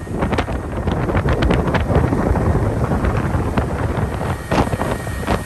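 Wind buffeting the microphone on a boat at sea, a loud steady rumble broken by many irregular sharp knocks.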